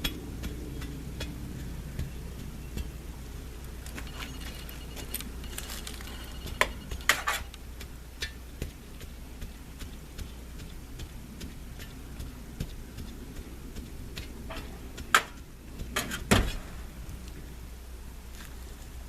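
Iron digging spud tamping clay fill: irregular knocks and clinks, with a few louder strikes about a third of the way in and again near the end.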